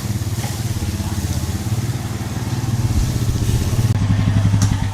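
A small engine running steadily with a fast, even firing pulse.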